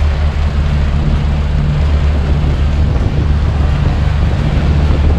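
Sportfishing boat's inboard engines running at a steady low drone while underway, with an even rush of wind and water over it.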